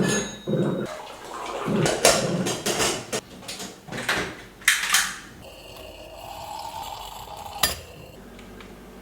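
Kitchen clatter: crockery and utensils clinking and knocking several times, then a quieter stretch broken by one sharp click near the end.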